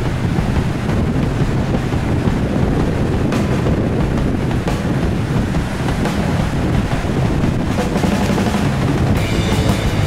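Background rock music with drums; higher held notes come in near the end.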